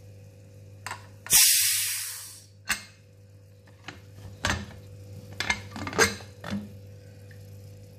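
Aluminium pressure cooker letting out its remaining steam in a loud hiss lasting about a second as its weight is lifted, then a few metal clicks and clunks as the lid is twisted open.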